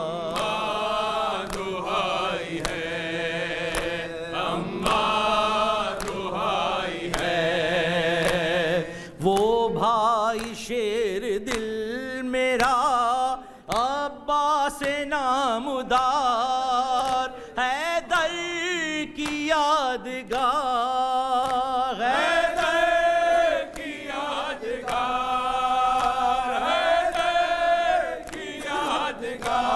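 Male voice chanting an Urdu noha, a mourning lament, in long held, wavering notes. Under it runs a regular beat of open-hand slaps on the chest (matam) from the mourners.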